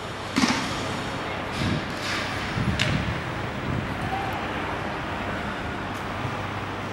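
Outdoor street ambience: a steady noise with a few short, sharp sounds in the first three seconds.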